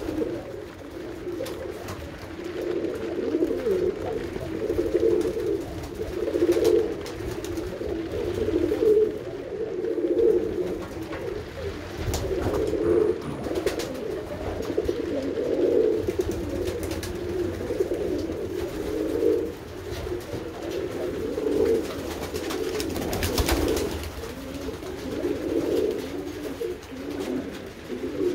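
A loft of Bowden tippler pigeons cooing continuously, many low coos from several birds overlapping.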